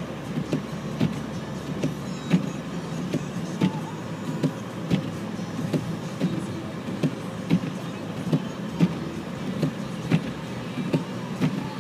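Windscreen wipers sweeping back and forth, a short knock at each end of the stroke about every two-thirds of a second, over the steady hum of the car's engine and tyres heard inside the cabin.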